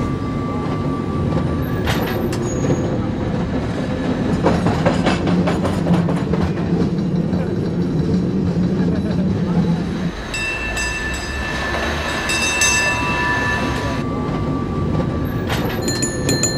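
San Francisco cable car running along its track, a steady rattling rumble from inside the car. From about ten seconds in there are a few seconds of high metallic ringing, and it comes again near the end.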